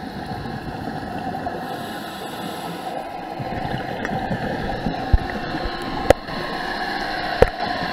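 Scuba diver's regulator exhaust bubbles gurgling, heard underwater through the camera housing as a steady muffled rush. Three sharp knocks stand out in the second half.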